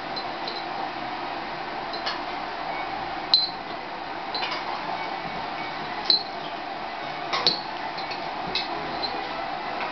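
A teaspoon clinking against a glass jar, a few sharp ringing clinks, the loudest about three and six seconds in and a quick pair about seven and a half seconds in, over a steady hum.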